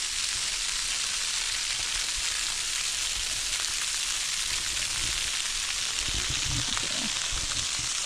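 Steady hiss of a small waterfall spilling over a sandstone ledge and splashing onto rock below, with a few low rumbles between about five and seven seconds in.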